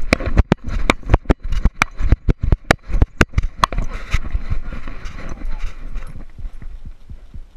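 Knocks and rattles of a dog-mounted action camera jostling with the strides of a running dog on grass, several sharp hits a second over a rustling noise, thinning out in the second half.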